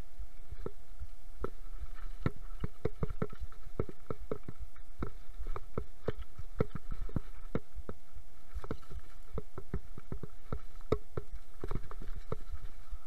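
Mountain bike clattering down a rocky trail: dense, irregular knocks and rattles as the wheels, chain and frame jolt over loose stones, over a steady low rumble of tyres on the ground.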